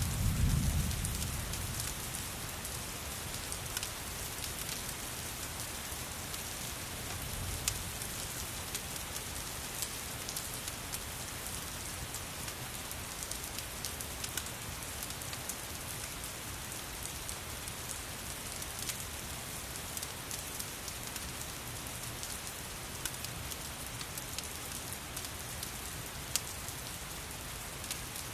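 Steady rain falling, mixed with the crackle of a wood fire, heard as scattered sharp clicks and pops. A low rumble swells in the first second or two, and a weaker one comes back about seven seconds in.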